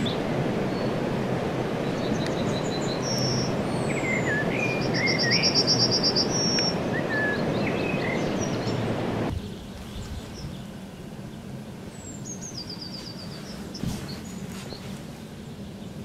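Songbirds singing, with warbling phrases and a fast high trill, over a steady rushing noise. About nine seconds in the rushing drops away abruptly, and a bird sings a descending run of notes ending in a trill over a quieter background.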